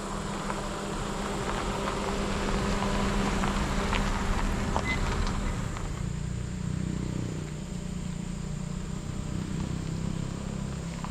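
A motor vehicle's engine running steadily, its note changing about six seconds in.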